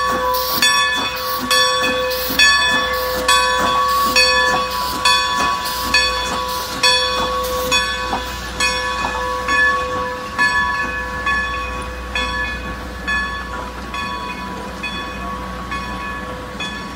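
A steam locomotive's bell ringing at about two strokes a second, slowly fading as the engine pulls away, over the low rumble of passenger coaches rolling past at walking speed.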